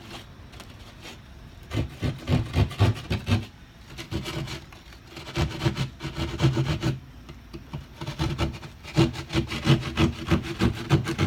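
Keyhole saw cutting through drywall in quick back-and-forth strokes, about four a second, in three short bouts with pauses between.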